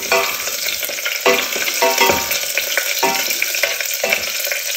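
Minced garlic, turmeric and ginger sizzling steadily in hot ghee in a stainless steel saucepan as they soften. A wooden spoon stirs them, scraping the pan about once a second.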